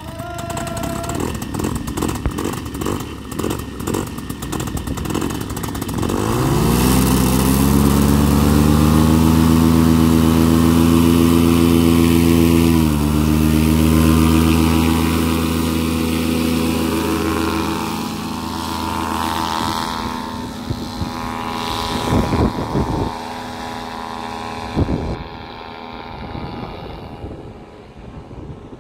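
Tandem paramotor trike's engine and propeller running at low power, then throttling up about six seconds in to a loud, steady full-power drone for the take-off. The drone fades as the trike climbs away, with two brief thumps late on.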